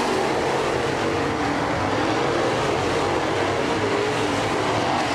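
A pack of crate late model dirt race cars with V8 engines running together in a steady, dense drone as they race around the track.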